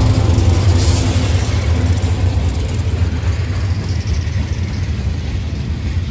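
BNSF freight train passing close by: the low drone of the trailing diesel locomotive fades over the first couple of seconds, leaving the steady rumble of boxcar wheels rolling on the rails.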